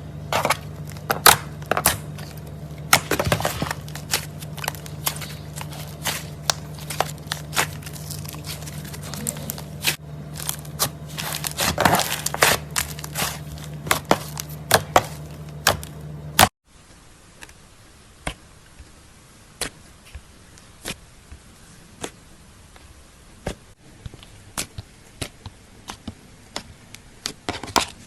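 Crunchy slime being squeezed and crushed by hand: rapid crackling and popping over a steady low hum. About two thirds of the way in, the sound cuts abruptly, the hum stops, and the crackles become sparser and quieter.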